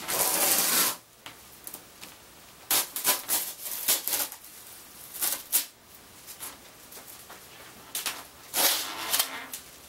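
Masking tape being peeled off a surfboard's rail from epoxy that has gelled but not fully hardened: a series of tearing pulls. The first is the longest and loudest, about a second at the start, and shorter pulls follow at intervals.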